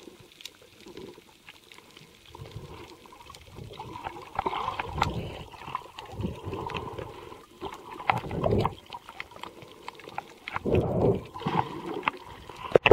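Water swishing and gurgling around a camera held underwater by a swimming snorkeler, in uneven swells with scattered clicks.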